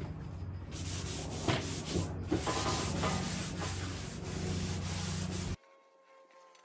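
Paper towel damp with acetone wiped back and forth over a sanded model-boat hull, a dry rubbing swish in repeated strokes that stops abruptly near the end.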